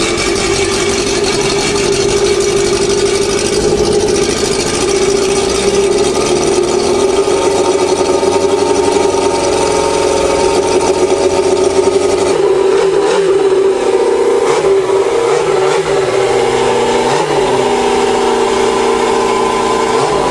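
Yamaha four-cylinder motorcycle engine in a homemade dune buggy running steadily just after a cold start. From about twelve seconds in, the revs waver up and down. It runs rough, which the owner puts down to one cylinder missing, suspecting an oily spark plug.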